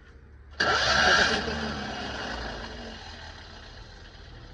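Citroën 2CV's air-cooled flat-twin being cranked over by its starter, cutting in suddenly about half a second in. It is loudest for the first second, then eases to a lower steady run, an attempt to start an engine that won't start.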